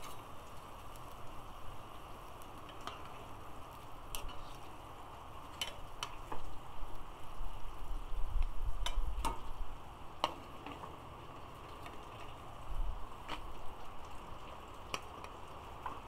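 Large pot boiling hard on a propane burner: a steady bubbling hiss with scattered light clicks, and a few low rumbles about halfway through.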